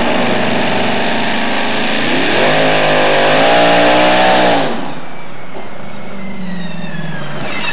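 Supercharged engine of a two-wheel-drive pulling truck running hard under load as it pulls the sled; its pitch climbs about two and a half seconds in and holds high. Just under five seconds in, the engine note drops away suddenly, leaving a fainter whine that falls in pitch.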